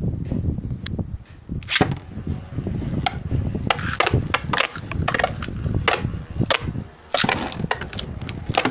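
Metal Fight Beyblade spinning tops whirring around a plastic stadium and clashing, with many sharp clacks as they strike each other and the stadium wall, coming in quick clusters over a constant low rattle.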